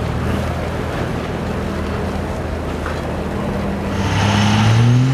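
Pickup truck engine in a truck pull, running steadily under load. About four seconds in it gets louder and climbs in pitch, and a high whine rises with it as the truck drags the weight sled down the track.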